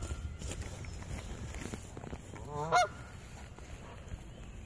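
A Canada goose gives one loud, harsh honk about two and a half seconds in. It is the agitated honking of a goose that is not happy.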